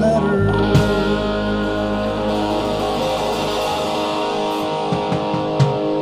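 A live band holds one long chord on electric guitar, with a few drum hits. The bass note drops out a little past the middle.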